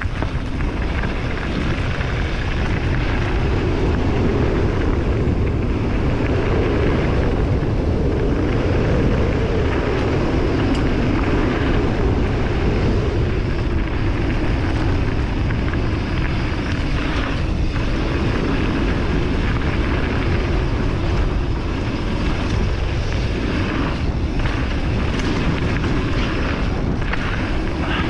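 Wind rushing over a GoPro Hero 8's microphone together with mountain-bike tyres rolling over gravel and dirt on a fast descent: a loud, steady rushing noise that builds up over the first second or so.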